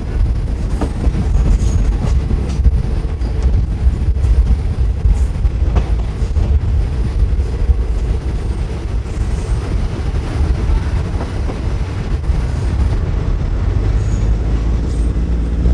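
Suburban diesel railcar running along the line, heard from an open window on board: a steady low rumble of the running train, with scattered clicks of the wheels.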